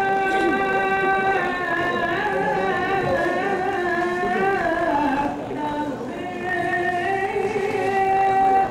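Accompaniment for a traditional Minangkabau dance: a single voice singing long held notes with wavering, turning ornaments. It breaks off briefly a little after five seconds in, then holds another long note.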